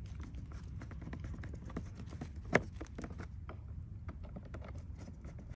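Screwdriver working small screws into the plastic heater-core box of a Mercedes 190E: a run of light clicks and ticks, with one sharper click about two and a half seconds in.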